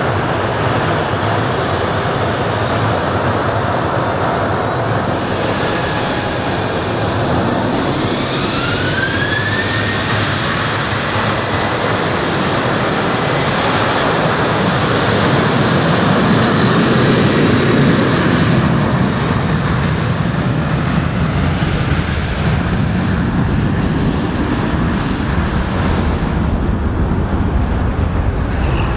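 Boeing 737-800's CFM56-7B turbofan engines spooling up for takeoff, with a rising whine about nine seconds in, then running steadily at takeoff thrust as the jet makes its takeoff run, loudest around the middle.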